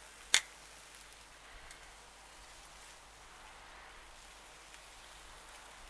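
Chicken breast strips sizzling steadily in a cast-iron pan over charcoal, with a single sharp click about a third of a second in.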